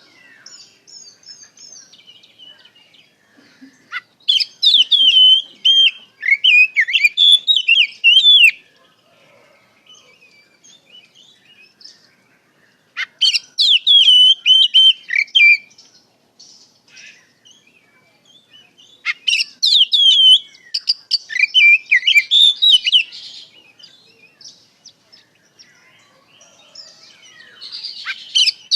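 Oriental magpie-robin (kacer) singing: loud bursts of rapid, varied whistled phrases a few seconds long, three of them, with a fourth starting near the end, separated by pauses filled with softer chirps.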